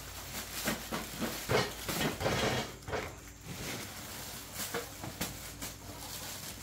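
A steady hiss with a cluster of knocks and rustling clatter in the first three seconds, quieter after that.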